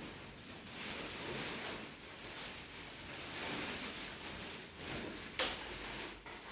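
Rustling and handling noise of a mattress's packaging being worked on, with one sharp click about five seconds in.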